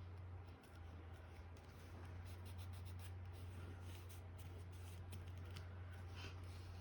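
Faint rustling and light ticks of cut cardstock pieces being handled and laid out, over a steady low hum.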